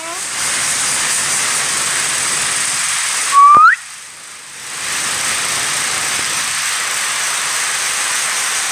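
A steady, loud hiss, with a short, high, rising squeal from a young child about three and a half seconds in. The hiss drops away for about a second after the squeal, then comes back.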